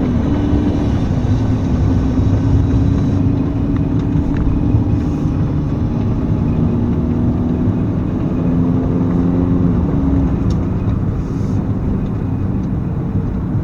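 Motor vehicle driving over a rough field track: a steady engine note over a loud, low rumble of the drive.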